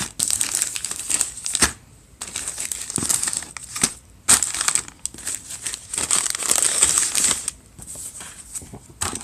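Snack bags and plastic packaging crinkling and rustling in irregular bursts as they are lifted out of a box, with short lulls between.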